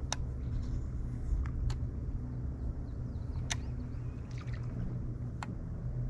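Steady low hum of a fishing boat's motor on the water, with about five sharp clicks scattered through it.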